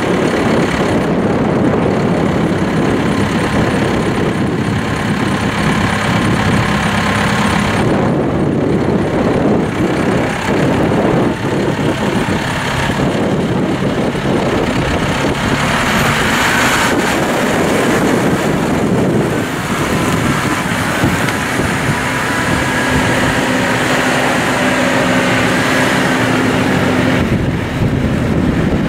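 John Deere 6130R tractor's four-cylinder diesel engine running steadily while the tractor is driven.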